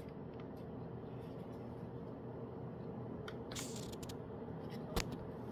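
Low steady hum with a few faint ticks, then one sharp click about five seconds in, as the fluorescent light fixture is switched back on to restart its end-of-life tube.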